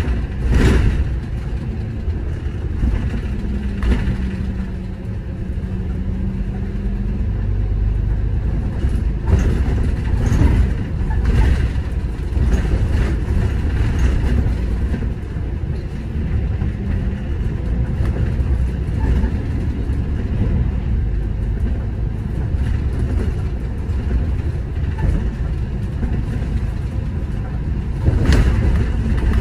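City bus driving: steady low engine and road rumble with scattered knocks and rattles, and a low hum for a few seconds near the start.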